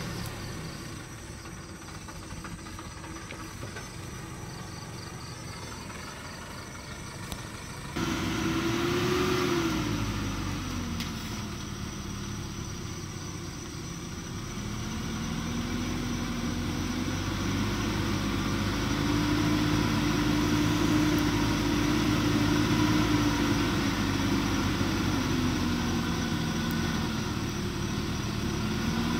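Diesel engine of a loaded log truck running as it creeps down a steep, muddy slope, its note rising and falling and growing louder as the truck comes closer. The sound steps up suddenly about eight seconds in.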